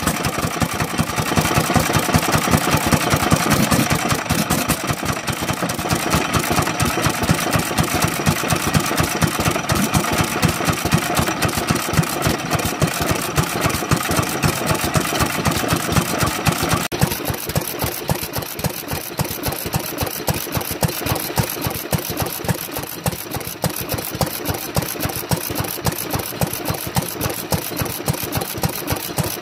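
Sekiya Nōki BEST single-cylinder stationary oil engine running steadily, its exhaust beating out a regular rhythm as the flywheel turns. A little over halfway through the sound drops slightly in level and turns duller.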